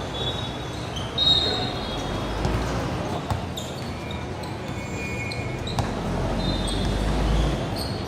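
Basketball game court sounds: sneakers squeaking sharply on the floor several times, with a few thuds of the ball bouncing.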